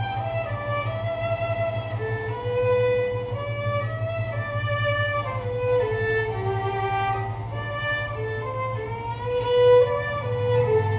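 Violin played solo with the bow: a slow melody of held notes moving up and down step by step.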